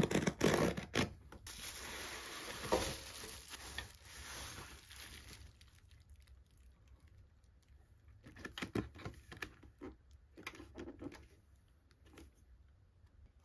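Box cutter slitting packing tape and cardboard as a parcel is torn open, the loudest part, over the first few seconds. Then quieter rustling of plastic wrap and light clicks as a plastic-wrapped stainless steel tray and its plastic lid are handled.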